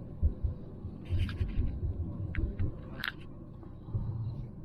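Electric commuter train running, heard from inside the carriage: a steady low rumble with irregular low thumps and a few faint clicks.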